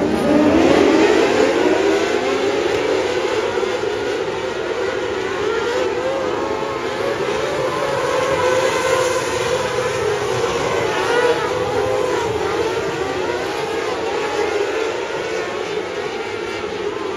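A pack of winged sprint cars accelerating together, their engine pitch climbing over the first couple of seconds. Then many engines run at high revs together as a steady, high-pitched, wavering drone while the field laps the dirt oval.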